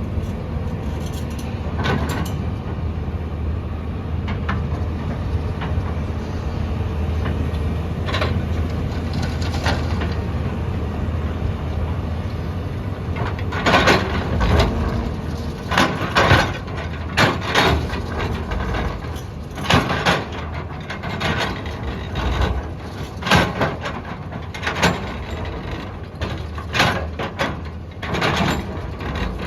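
JCB 3DX backhoe loader's diesel engine running steadily at work. From about halfway it is joined by a string of loud, irregular knocks and thuds.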